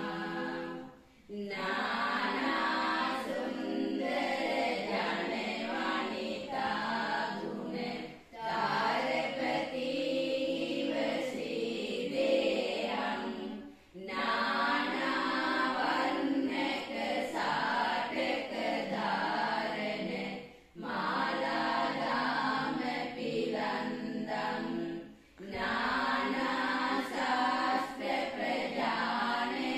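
Group of women singing a devotional chant together in phrases of about four to seven seconds, each broken off by a brief pause for breath.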